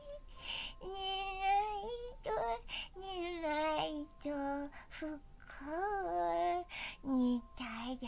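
A high-pitched voice singing a wordless lullaby of kitten-like 'myaa' meows: a string of held notes that slide and waver in pitch, with short breaks between them.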